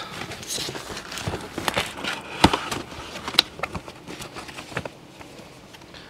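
Plastic packaging being cut and torn open with a kitchen knife: crinkling and rustling with scattered sharp clicks, two louder ones in the middle. It gets quieter over the last second or so.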